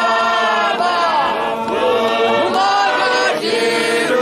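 A church congregation singing a Shona hymn a cappella, many voices in harmony with long held notes that slide between pitches.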